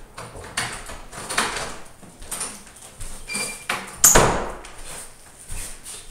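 Plastic bag rustling and being handled, with a series of short scrapes, a brief squeak a little past three seconds, and a louder thump about four seconds in.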